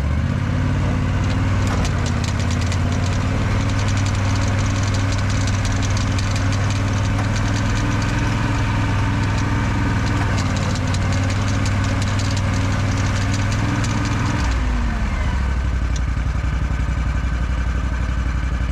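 Argo 750 HDI ATV's Kohler V-twin engine running steadily at raised revs while the drive chains turn, then the engine speed drops about three-quarters of the way through and settles to a lower steady run.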